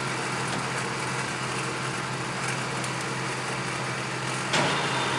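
Clausing Colchester Master 2500 engine lathe running steadily under power, a constant mechanical hum with a whirring gear-train wash. About four and a half seconds in there is a sudden clunk and the machine gets louder.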